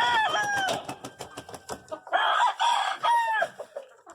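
Gamecock roosters crowing twice, one long crow at the start and another about two seconds in, with hens clucking between.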